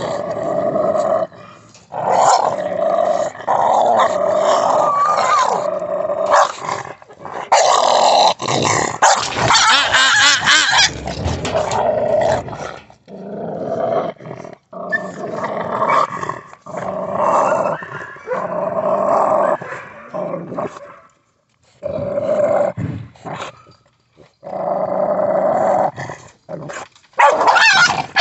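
American pit bull terriers growling over a freshly killed bird as they feed, in bursts of a few seconds with short breaks, with a few barks.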